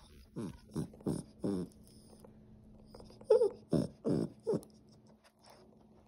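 A small long-haired puppy whining and grumbling close to the microphone. It gives four short calls in quick succession, each sliding down in pitch, then another four after a pause of about two seconds.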